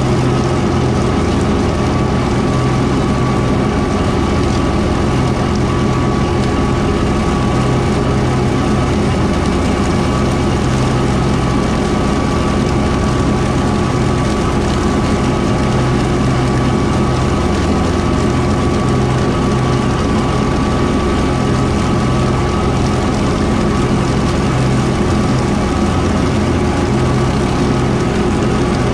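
Kubota M4-071D tractor's diesel engine running steadily while driving a Woods BW12 batwing rotary mower.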